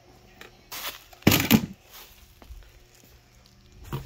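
Handling noise as picture frames are set aside and the cardboard box is rummaged through: two short rustling knocks about a second in, with fainter handling between.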